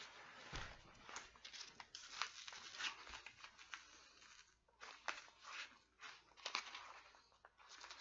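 Faint, irregular scratching, crinkling and tearing of a taped cardboard shipping box being picked at and pulled open by hand; the box is heavily taped shut and hard to open.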